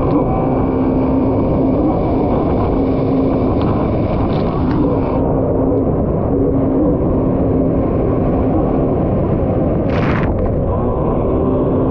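Kawasaki SX-R 1500 stand-up jet ski's four-cylinder four-stroke engine running steadily at speed, its pitch wavering slightly, over rushing water and wind noise. A short burst of hiss about ten seconds in.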